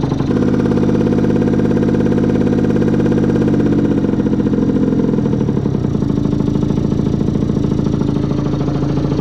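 Small 50cc two-stroke motorcycle engine running steadily at a fast idle, with the idle speed deliberately set high during carburettor adjustment.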